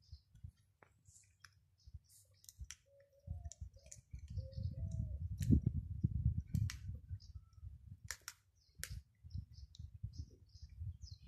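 Tortoiseshell cat chewing and crunching small prey: irregular sharp clicks of teeth on bone. A low rumble comes in about three seconds in, dips near nine seconds and returns.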